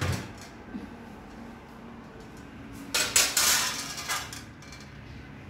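A wire oven rack with a hot metal pizza pan on it is taken out of the oven and set down on a countertop: a knock at the start, then a metal clatter lasting about a second, some three seconds in.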